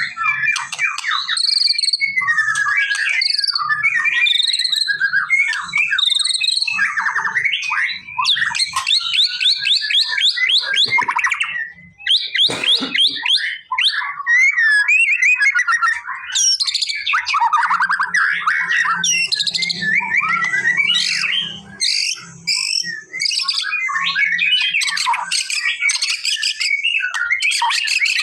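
White-rumped shama singing a long, varied song: clear whistled phrases that glide up and down, broken by fast rattling trills of rapidly repeated notes.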